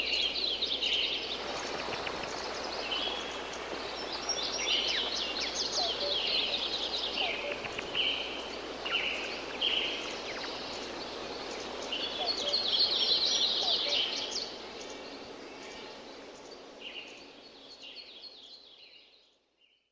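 Tropical jungle ambience: many birds calling and trilling over a steady forest hiss. Bursts of calls come and go, and the whole ambience fades out over the last few seconds.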